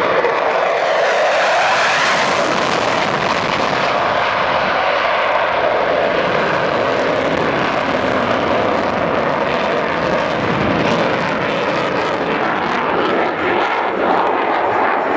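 An F-16 Fighting Falcon's jet engine in afterburner during a fast low pass and banking turn overhead: loud, continuous jet noise that is strongest in the first few seconds. A rough crackle runs through it in the second half as the jet moves away.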